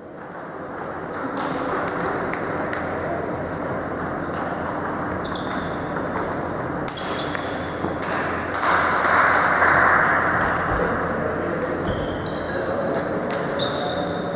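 Table tennis balls clicking and pinging on tables and bats, scattered sharp ticks, some with a brief high ring, over steady sports-hall background noise. The sound fades in over the first couple of seconds, and the background swells for a moment about nine seconds in.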